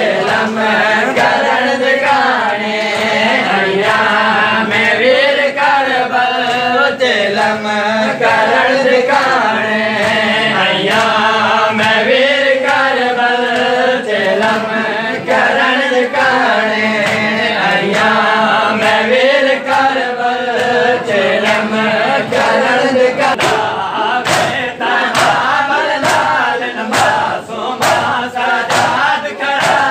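A group of men chanting a noha, a Shia mourning lament, together with a steady rhythm. Rhythmic chest-beating (matam) slaps run under the singing and become prominent in the last several seconds.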